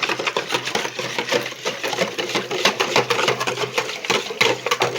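Oil, milk and yeast being mixed briskly in a bowl, the utensil clicking rapidly and continuously against the bowl.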